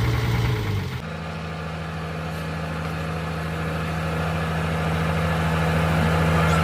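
An engine running steadily with a low, even hum. The sound changes abruptly about a second in, then grows gradually louder.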